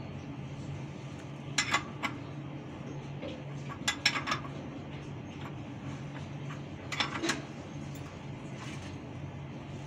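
Metal clinks of a ring spanner on the bolts and nuts of a truck's clutch pressure plate during release-lever adjustment, in three short clusters, over a faint steady low hum.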